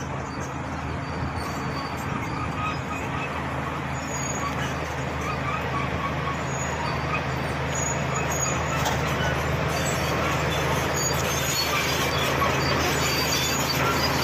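Shantui SD16 crawler bulldozer's diesel engine running steadily under load as the blade pushes soil and grass. It grows gradually louder as the machine comes closer.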